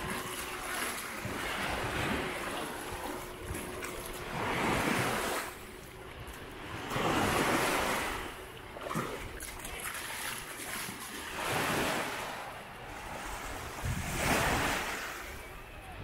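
Sea waves breaking on the beach, rising and washing back in repeated surges about every three seconds.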